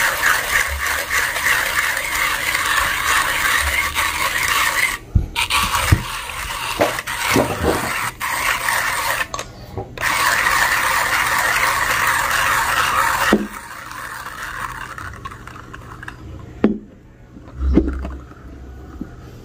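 1Zpresso hand coffee grinder crunching whole coffee beans as its crank is turned, in long stretches with two brief breaks. The grinding stops about 13 seconds in, and a few light knocks follow.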